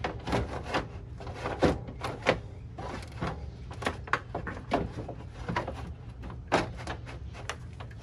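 Radiator cooling fan assembly being worked into its mounts, knocking and scraping against the radiator and its clips in a run of irregular clicks and knocks.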